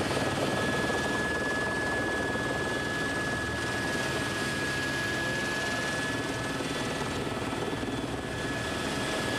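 Helicopter in flight: a steady rotor and engine noise with a constant high whine.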